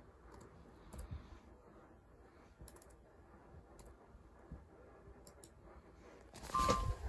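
Faint, scattered clicks, a handful spread over several seconds, like keys or a mouse being clicked. Near the end comes a louder, noisy sound with a brief two-note beep.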